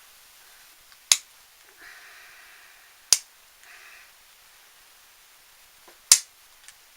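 Three sharp clicks, about a second in, near the middle and near the end, as a metal punch is pressed against the plastic tabs of a diecast car's base.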